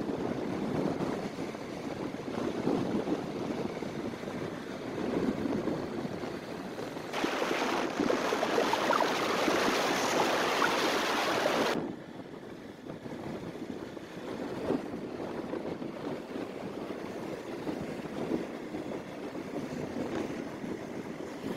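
Wind rushing over the microphone of a moving motor scooter as a steady noise. A louder, hissier stretch starts about a third of the way in and cuts off suddenly just past halfway.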